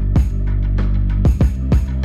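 Background music with drums and a sustained bass line.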